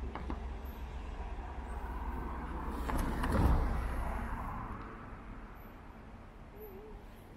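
A car passing close by on the road. Its tyre and engine noise swells to a peak about three and a half seconds in, then fades away.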